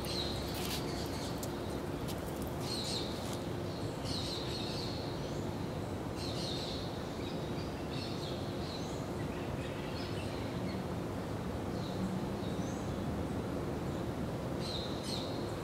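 Bird calling in short chirps every second or two, over a steady hiss of background noise, with a few sharp clicks in the first second.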